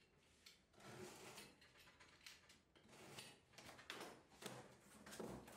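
Faint sounds of a cardboard shipping box being opened: a blade slitting the packing tape, then the cardboard flaps scraping and creaking as they are pulled open, in a series of short strokes.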